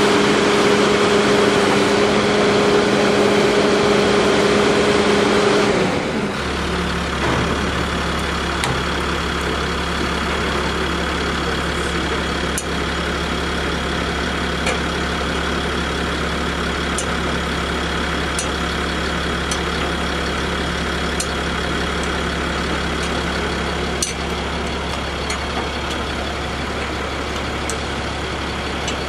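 Heavy vehicle engine running steadily at idle. About six seconds in the sound changes abruptly to a lower, deeper steady hum, with faint light clicks over it.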